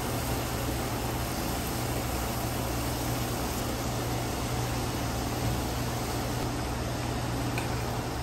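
Raw bacon strips sizzling in a frying pan: a steady hiss with a few faint pops, over a low steady hum.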